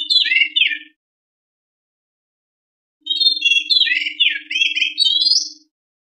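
White-rumped shama singing: a phrase of whistled notes and downward slurs ends about a second in, then after a two-second gap comes a longer phrase of varied whistles and slurs lasting about two and a half seconds.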